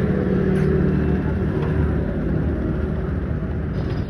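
A vehicle engine running steadily with a low rumble, a little louder in the first couple of seconds.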